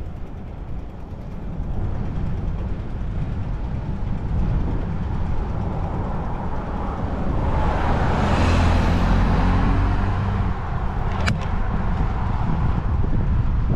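A car passing by, swelling up and fading away, loudest about eight or nine seconds in, over a steady low rumble of wind on the microphone from riding a bicycle. A single sharp click comes a couple of seconds after the car is loudest.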